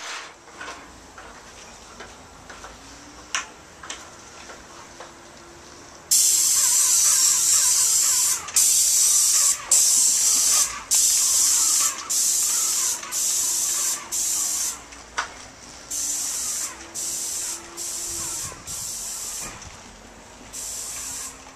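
A sprayer hissing in a run of repeated bursts of about a second each, starting about six seconds in after a quieter stretch with a few light clicks.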